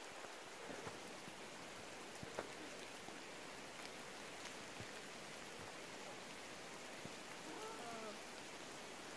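Steady rain falling on rainforest foliage, with scattered drops ticking close by.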